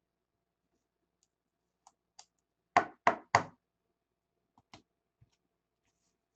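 Three quick, loud knocks about a third of a second apart, with a few faint clicks and taps of cards being handled before and after.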